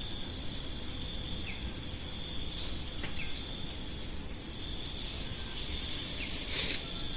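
An insect chirps steadily, with short high pulses about three times a second, over a low rumbling background.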